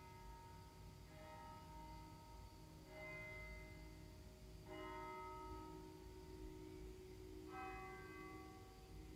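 Church bells ringing faintly to mark the half hour: four strikes a second or two apart, each ringing on and fading into the next.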